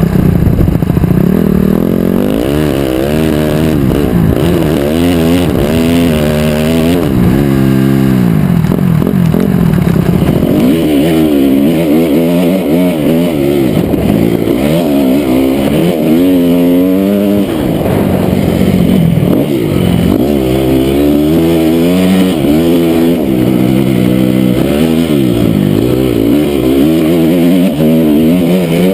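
2008 Honda CRF250R's single-cylinder four-stroke engine under hard riding, its pitch repeatedly climbing as the throttle is opened and dropping away as it shuts or shifts, cycle after cycle.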